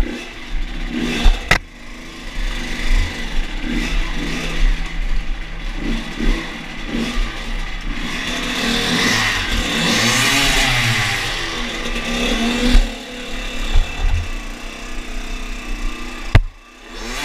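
Two-stroke Kawasaki KX dirt bike engine revving up and down over and over as it is ridden over rocks inside a concrete tunnel. A sharp knock comes about a second and a half in and another near the end, just before the engine briefly drops away.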